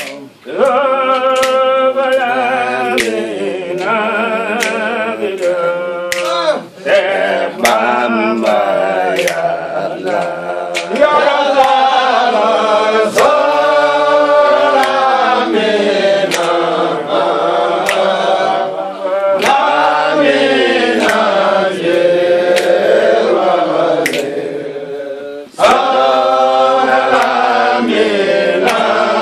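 A group of men singing a Mouride devotional chant together, unaccompanied, with short breaks between phrases. Sharp clicks mark a steady beat roughly once a second.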